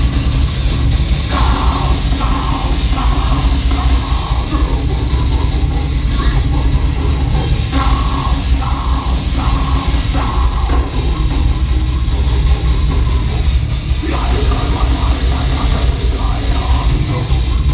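Death metal band playing live, loud: heavy guitar and bass riffs over a drum kit with bass drum and cymbals.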